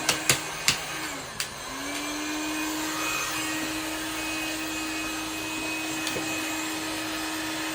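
Handheld heat gun blowing steadily, used to soften the adhesive sealing a phone screen. Its motor tone dips and comes back up about a second in, with a few sharp clicks near the start.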